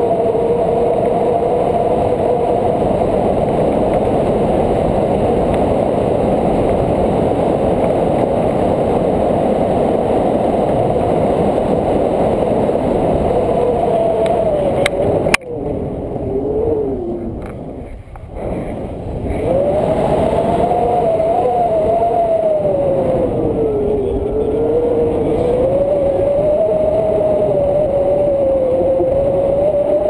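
Wind rushing over a camera microphone during a tandem paraglider flight: loud, steady wind noise with a whistle that wavers slowly up and down in pitch. About halfway through there is a click, the noise drops away for a few seconds, and then it returns.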